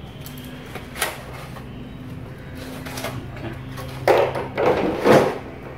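Handling noise from a water heater's thermal insulation cover being pulled off: one sharp click about a second in, then a few loud scraping, rustling bursts near the end, over a low steady hum.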